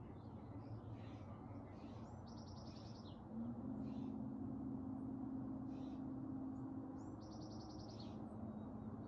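Wild birds calling: scattered short high chirps and two short, rapid, rattling calls about five seconds apart. A steady low hum comes in about three and a half seconds in.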